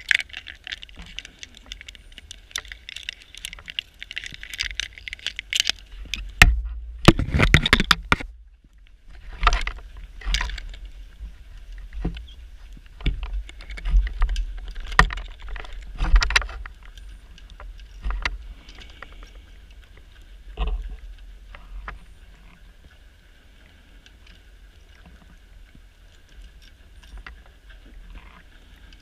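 A diver's breathing gear heard underwater: irregular gushes of exhaled bubbles rush and rumble every second or two over a steady hiss. The biggest gush comes about seven seconds in, and the bubbling thins out over the last few seconds.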